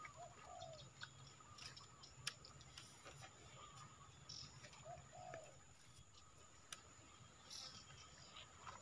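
Near silence, with a faint bird call twice, about four and a half seconds apart, each a short note followed by a longer one. A few faint clicks.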